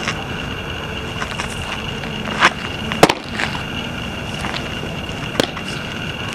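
A baseball popping into a catcher's mitt about three seconds in, the loudest sound, with a softer knock just before it and a small one near the end, over a steady outdoor hiss.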